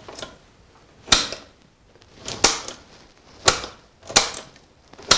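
A switch on a household fuse box being flipped again and again: five sharp clicks about a second apart. The power stays off.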